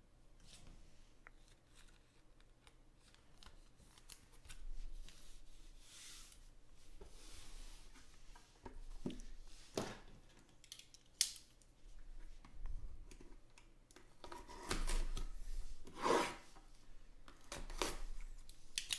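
Hands handling trading cards and a sealed card box, with scattered soft rustles and scrapes. Near the end a small blade scrapes and slits the box's plastic shrink-wrap.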